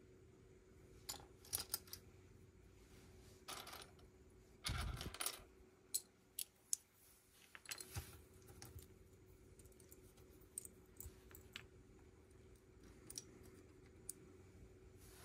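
Lego bricks being handled and snapped together: scattered small plastic clicks and brief rustles of pieces, with a louder soft thump and rattle about five seconds in.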